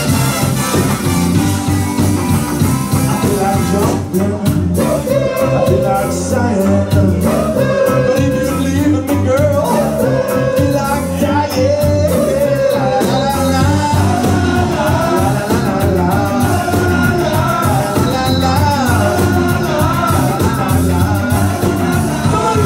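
Live ska band playing: a horn section of trombone, trumpet and saxophone over electric guitar, bass guitar and drums, with sung vocals.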